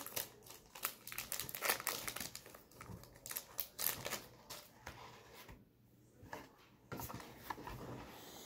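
Foil wrapper of a Pokémon card booster pack crinkling and tearing as it is handled and opened: a run of irregular crackles, thinning out in the second half.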